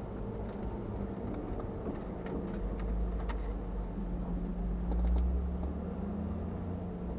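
Mitsubishi Pajero's engine running steadily on the move, heard inside the cabin with road noise and a few faint clicks; the engine grows a little louder about five seconds in.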